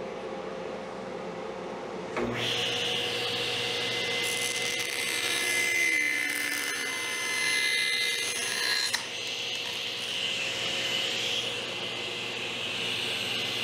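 A shop machine or power tool starts abruptly about two seconds in and runs steadily. A higher whine rides over it for several seconds and cuts off suddenly near the nine-second mark, while the steady running noise carries on.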